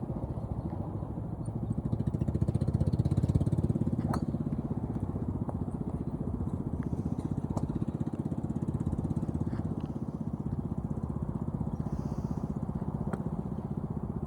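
A small engine running steadily with a fast, even pulse. A few sharp clicks sound over it, about four, seven and a half and thirteen seconds in.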